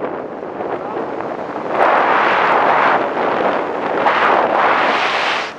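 Wind buffeting the camera microphone during a parachute canopy descent, a steady rush that surges into louder gusts about two seconds in and drops away right at the end.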